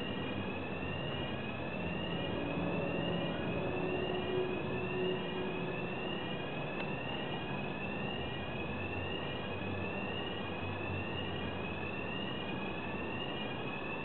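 Steady rushing machinery noise from a cableway crane carrying a slung wheel loader. Over it, a rising electronic warning tone repeats about once a second.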